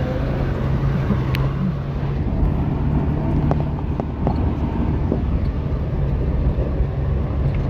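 Four-wheel-drive vehicle's engine running steadily while it drives slowly over a rough stony track, heard from inside the cab, with a few sharp knocks and rattles from the vehicle jolting over rocks.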